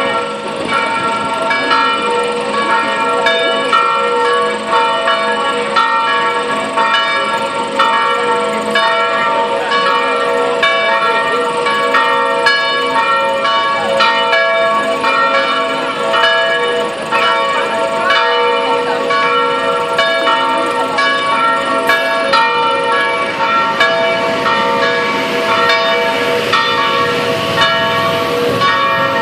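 Two cast church bells, electrically swung, ringing together in a full peal (plenum): overlapping strokes in a steady rhythm, each note ringing on under the next.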